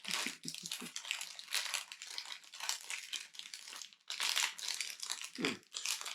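Crinkling of the small plastic Lego parts bags being handled and opened, an irregular crackle throughout.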